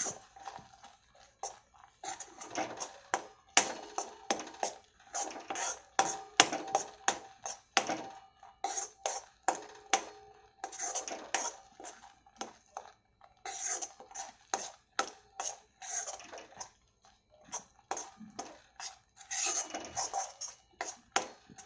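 Steel spatula scraping and knocking against a kadhai in many quick, uneven strokes as thick ground masala paste is stirred and sautéed in oil. A faint steady hum runs underneath.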